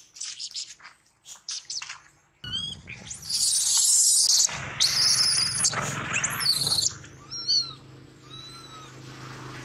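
Macaques screaming: after a few quiet rustling clicks, loud shrill high-pitched screams set in about two and a half seconds in and run for several seconds, followed by short rising-and-falling squeaks.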